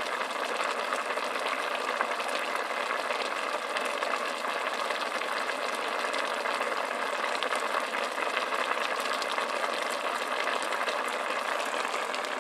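Pot of chopped meat simmering in a shallow brown sauce: a steady bubbling and crackling that keeps up evenly throughout.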